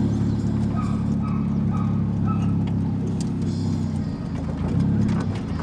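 Volkswagen Gol's engine and aftermarket exhaust rumbling loudly on the move, holding a steady speed, easing off briefly about four seconds in, then picking up again.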